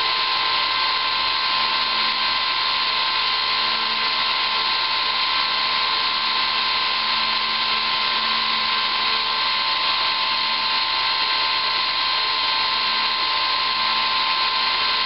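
ParkZone Super Decathlon's brushless electric motor driving a Master Airscrew 8x6 three-blade propeller, held static on the bench. It runs with a steady whine and rush of prop air, with no change in speed.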